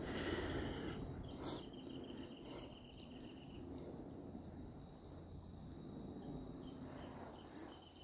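An insect's high, rapidly pulsed trill, lasting about two seconds, starting again near the end.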